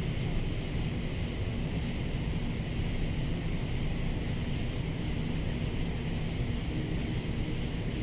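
Cicadas singing in a steady chorus over a constant low rumble.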